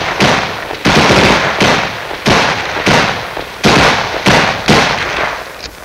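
Battle gunfire: a rapid run of about eight sharp reports in under six seconds, each trailing off in a long echoing decay.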